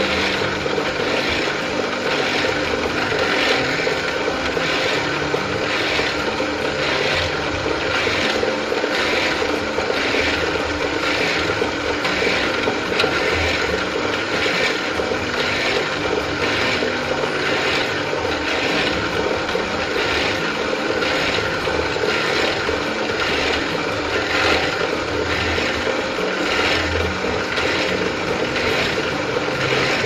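Bench drill press running steadily, its modified twist bit drilling a row of shallow holes in a wooden board. A regular pulse, about three beats every two seconds, runs through the motor's steady hum.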